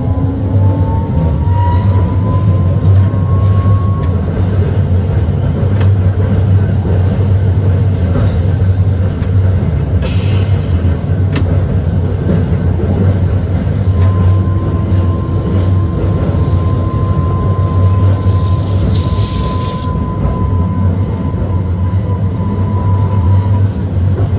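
Hakodate city tram running, heard from on board: a steady low rumble with a motor whine that rises in pitch over the first few seconds as it accelerates, then holds steady and dips slightly near the end. Two brief hisses break in, about ten seconds in and again around nineteen seconds.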